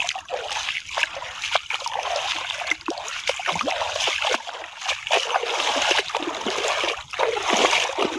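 Legs wading through shallow river water: uneven, repeated splashing and swishing.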